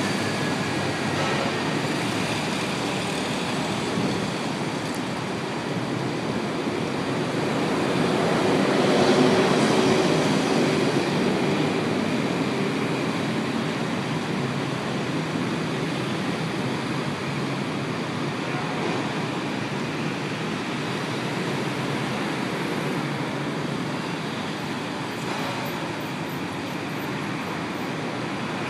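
Dense city intersection traffic, many motor scooters and cars idling and pulling through together: a steady mixed rumble of engines and tyres that swells louder around nine seconds in.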